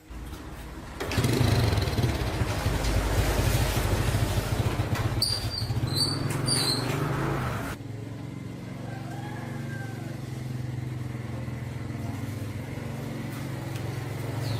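Small motorcycle engine running: loud and rough for the first several seconds, then abruptly a steadier, even hum about eight seconds in, with a few high chirps in between.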